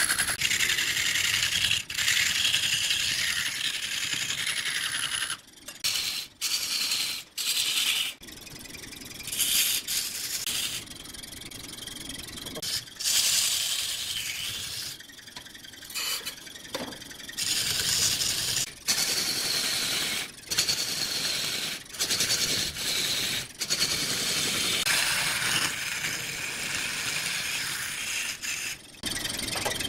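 Turning tool scraping and cutting into wood spinning on a lathe, a steady hiss that stops and restarts abruptly many times.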